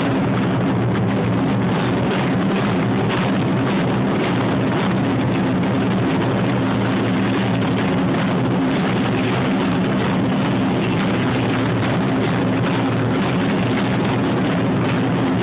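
Several taiko drums beaten in a fast continuous roll, a dense steady rumble with no single strokes standing out.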